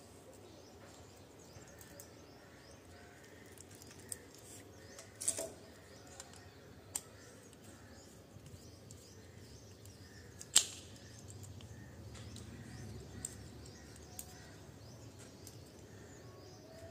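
Small scattered clicks and taps of a screwdriver and plastic plug parts as wires are screwed into the terminals of a 16 A plug. Two sharper clicks stand out, about five seconds in and, loudest, about ten seconds in.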